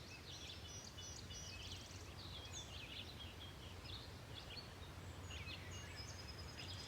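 Several small songbirds chirping and singing faintly, with many short overlapping calls and trills, over a low steady background hum.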